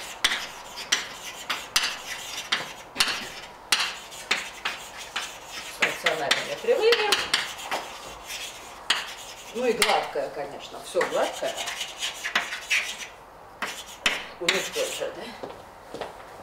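Chalk writing on a blackboard: quick, irregular taps and scratches as the chalk strikes and drags across the board.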